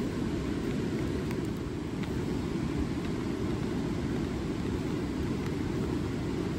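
Steady low rushing of a nearby mountain creek.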